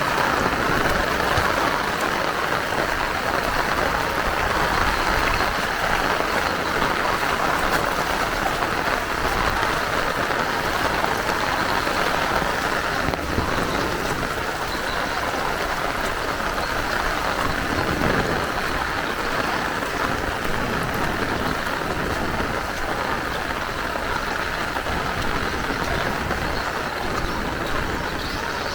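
Heavy rain falling steadily, an even, dense hiss of drops on the ground.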